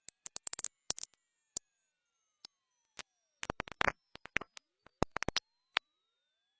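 Very high-pitched electronic sine-wave test tone, slowly rising in pitch toward the top of hearing, with scattered faint clicks; it fades over the last second and cuts off.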